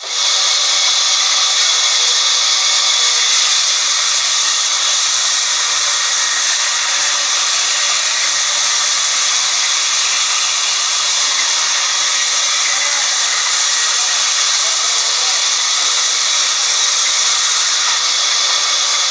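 Large vertical band saw of a log sawmill cutting lengthwise through a log as it is fed through the blade: a loud, steady, high-pitched hissing whine without pauses.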